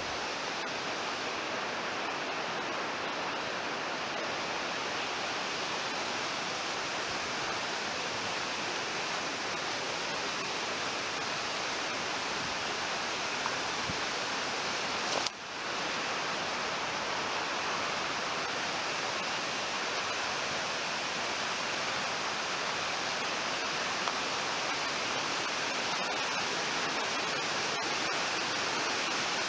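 A river rushing steadily over rocks, a constant full hiss of water, with a brief break about halfway through.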